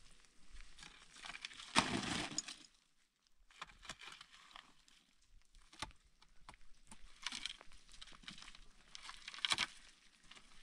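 Long-handled digging tool chopping and scraping into dry, stony earth: irregular crunching scrapes and short knocks of the blade on soil and pebbles, the longest and loudest about two seconds in.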